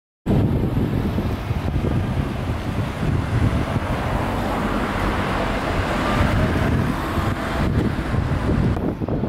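Road traffic on a busy city street: a steady rumble of passing cars and buses. It cuts in abruptly just after the start.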